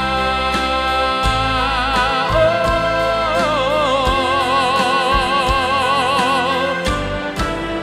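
A singer holds long, sustained notes over instrumental accompaniment. The pitch steps up twice in the first few seconds, then one note is held with wide vibrato and ends about seven seconds in, while the accompaniment carries on.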